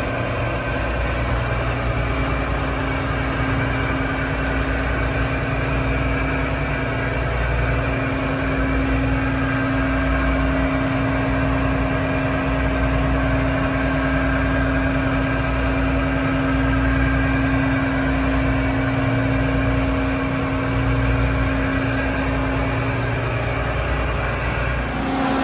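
Steady engine-room machinery noise from a ship's main generator engines running in parallel under load: a constant low throb with a steady hum over it.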